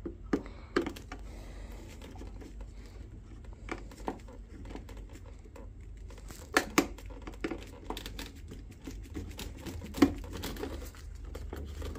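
Screwdriver working the screws of a plastic electrical terminal block, with scattered clicks, scrapes and rustling as the wires, the earth last, are loosened and pulled out. The sharpest clicks come about half a second in, near seven seconds and at ten seconds.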